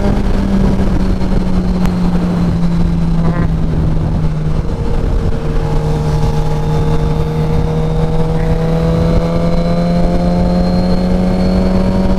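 Suzuki GSX-R 1000's inline-four engine running at a steady cruise, heard from the rider's seat with wind rushing over the microphone. A fainter engine note rises slowly in pitch through the second half.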